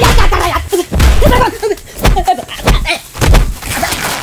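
Fight hits: four or five heavy punch-and-kick thuds, with a man's voice crying out between them.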